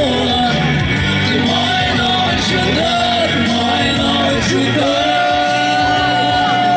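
A song with a singing voice over instrumental backing, the voice holding one long note near the end.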